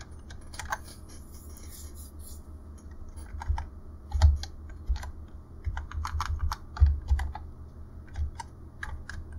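Typing on a computer keyboard: irregular keystrokes, sparse in the first few seconds, then coming more often with short pauses between.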